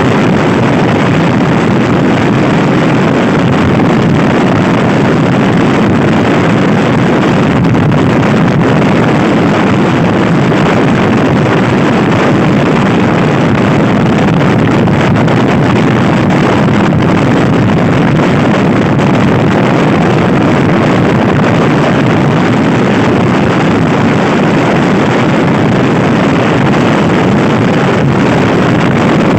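Steady, loud wind buffeting on the microphone of a Honda Scoopy-i scooter ridden at speed, largely covering the scooter's engine.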